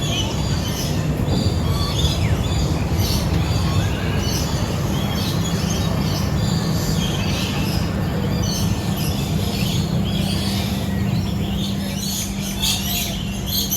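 Many birds chirping and calling in short scattered notes, over a steady low rumble that is the loudest sound throughout. The calls grow busier near the end.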